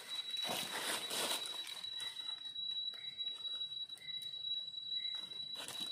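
Rustling and footsteps in dry leaf litter, over a steady high-pitched tone with faint short chirps about once a second.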